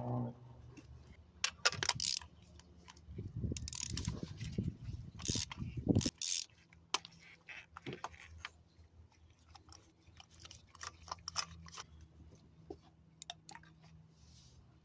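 Metal hand tools clicking, knocking and scraping while working in an engine's spark-plug well to get out a broken ignition-coil piece. The busiest rattling and knocking comes in the first half, with sparser clicks after.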